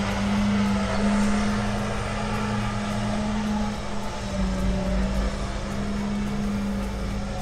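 Claas Xerion 4200 Saddle Trac with a slurry tank and injector running steadily as it drives past, a constant engine drone whose deep rumble grows stronger about halfway through.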